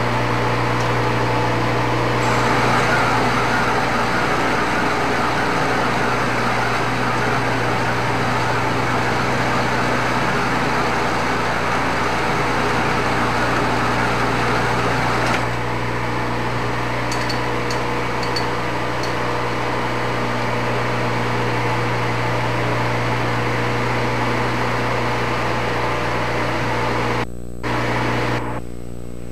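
Metal lathe running while a single-point tool cuts a thread in round stock: a steady machine hum with a noisy wash of cutting sound on top, which thins out about halfway through.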